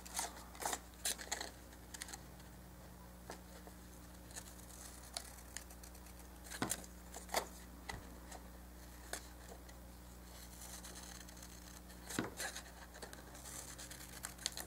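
Scissors snipping paper as printed shapes are cut out, in scattered short snips with quiet gaps between them.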